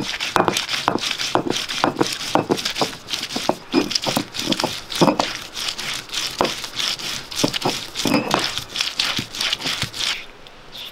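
Dry, papery vegetable skins crackling and tearing as they are peeled by hand, a rapid irregular run of small clicks and crinkles.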